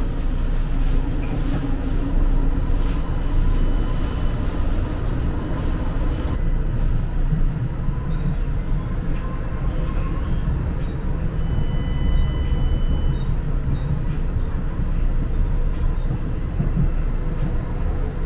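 St. Louis MetroLink light-rail car running between stations, heard from inside the car: a steady low rumble of wheels on track, with faint high tones coming and going.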